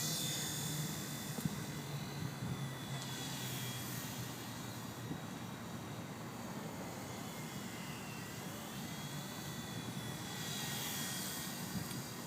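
WL Toys V911 micro RC helicopter's electric motor and rotor whining in flight, the pitch sagging and rising again as the throttle changes, over wind noise.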